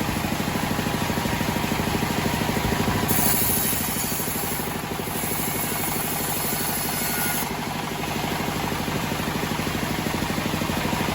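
Homemade band sawmill running, its engine holding a steady, even beat. A high hiss joins about three seconds in and drops away a few seconds later as the band blade cuts through the teak.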